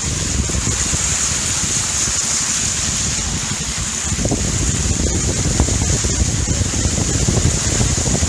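Shallow floodwater on a road splashing and churning as a vehicle drives through it, with wind rumbling on the microphone. The splashing gets louder about four seconds in.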